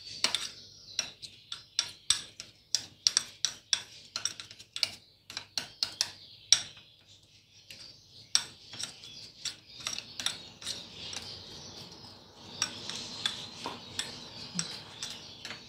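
A small metal spoon stirring thick hand-feeding formula in a small bowl: quick clicks and taps of the spoon against the bowl's sides, turning to a softer scraping for a few seconds near the end.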